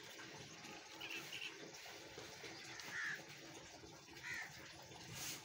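A few short bird calls: a quick pair about a second in, then single calls about three and four seconds in, over a faint steady outdoor background hiss.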